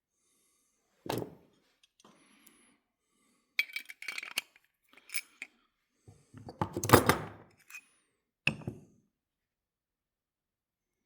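Small metal parts and tools clinking and knocking on a workbench: a knock about a second in, scattered clinks, a louder clatter around the middle, and a last knock near the end.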